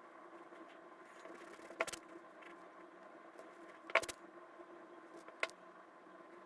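Three sharp, separate clicks over a steady electrical hum; the second click, about halfway through, is the loudest.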